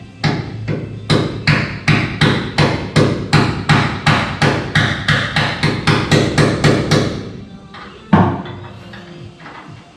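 Hammer blows struck in a fast, even run, about two or three a second for some seven seconds, then one heavier blow about a second later.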